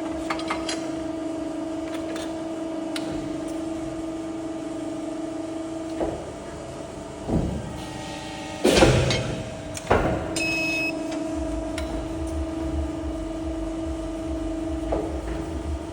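CNC sheet-metal machinery running: a steady hum that stops about six seconds in and resumes a few seconds later. Sharp metal clanks fall in the gap, and a short electronic beep sounds shortly after ten seconds.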